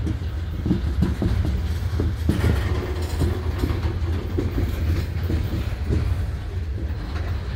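CSX freight cars rolling past on the rails, a steady low rumble with repeated clacking and knocking from the wheels. Some of the knocking comes from wheels with flat spots ('square wheels').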